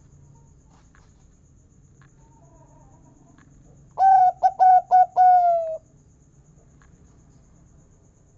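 Zebra dove (perkutut) giving one cooing phrase about halfway through: a few quick short notes run into a longer, slightly falling final note, the 'kung' that keepers prize.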